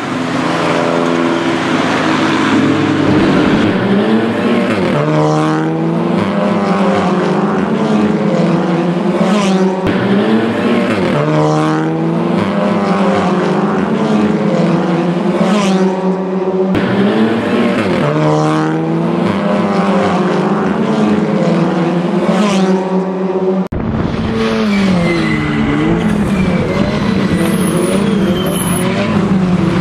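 Racing touring car engines at full throttle, the note climbing through each gear and dropping at every upshift. About 24 seconds in the sound cuts to cars passing, the engine note falling and rising again, with tyres squealing.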